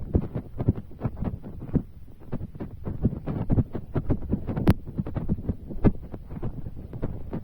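Rain falling in heavy drops close to the microphone: a dense, irregular patter of dull thuds, several a second, with one sharp click about two-thirds of the way through.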